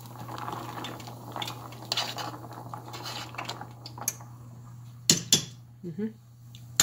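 Metal spoon stirring pasta in a stainless steel pot of boiling water, scraping and clinking against the pot, with two sharp clinks about five seconds in.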